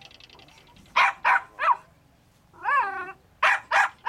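Jack Russell terrier barking at a fox in an artificial earth: three sharp barks about a second in, a longer wavering yelp, then two more quick barks near the end.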